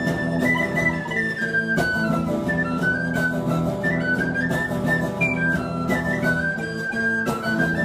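Tin whistle playing a high, stepping melody over strummed guitar chords, an instrumental break in a live folk-style song.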